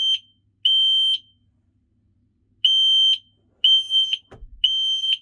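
Newly fitted smoke alarm sounding its test tone: loud, high-pitched beeps of about half a second each in groups of three, one beep, then a pause of about a second and a half, then three more a second apart, showing the alarm is working. A brief dull knock falls between the last two beeps.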